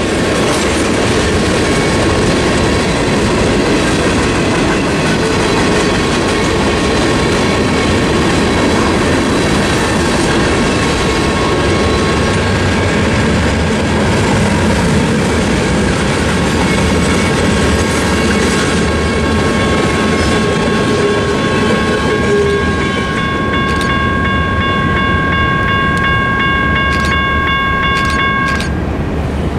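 Freight cars rolling past a grade crossing, wheels clacking over the rail joints, while the crossing's electronic warning bells ring steadily. The bells cut off suddenly about a second before the end, once the train has cleared.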